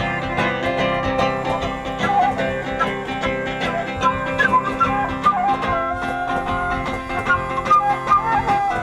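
Acoustic blues played by a small group of street musicians: plucked guitar strings with a wavering melody line over them, no singing.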